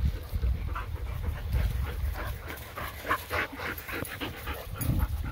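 Dogs panting in quick, irregular breaths as they play, over a steady low rumble.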